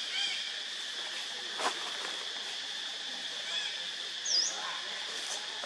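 Steady high-pitched insect drone. A few short high squeaks come near the start, a sharp click about a second and a half in, and a quick high down-and-up chirp about four seconds in.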